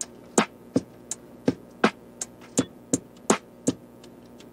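Background music: a sparse electronic drum beat, about three sharp hits a second over a faint steady bed.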